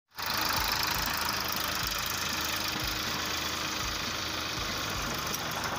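Sonalika DI 42 RX tractor's diesel engine running steadily as the tractor pulls its trailer up onto steel loading ramps.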